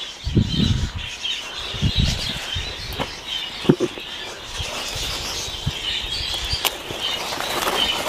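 Small birds chirping continuously, with irregular low thuds and rustling of leaves as a person steps into a vegetable bed and handles the plants. There are a few sharp clicks, about three and four seconds in and again near the end.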